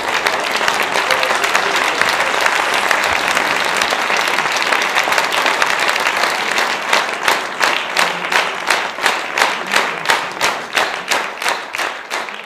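Theatre audience applauding; about seven seconds in the mixed applause turns into rhythmic clapping in unison, about three claps a second.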